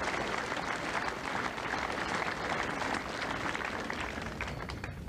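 Crowd applauding, a dense patter of many hands clapping that thins to a few last claps near the end.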